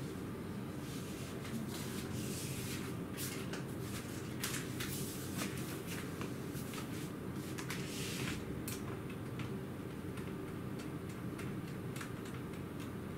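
Handling noises: scattered light clicks and short rustles, busiest in the first two-thirds, over a steady low hum.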